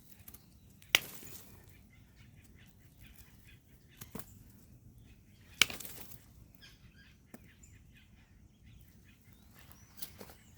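Sharp strikes of a digging tool on hard, drought-dried soil while cassava roots are worked out of the ground. Two loud blows, about a second in and just past halfway, with a few fainter knocks, over faint birds chirping.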